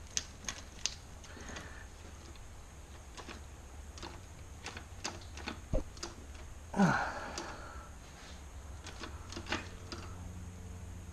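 Scattered light metallic clicks and taps of tools and parts being handled on a Suzuki RM250 two-stroke engine's cylinder, with one louder clatter about seven seconds in.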